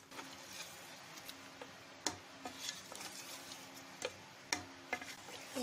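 Wooden spatula knocking and scraping against a metal pot while stirring chicken pieces and taro root in thick masala, giving irregular sharp clicks about one or two a second over a faint steady hum.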